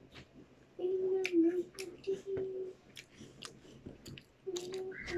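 A child chewing a crunchy Hansel biscuit, with many short crisp crunches, while humming a steady note through her full mouth for about two seconds from about a second in and again near the end.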